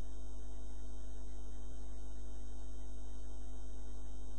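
Steady electrical mains hum: a low buzz with a ladder of steady overtones, unchanging throughout.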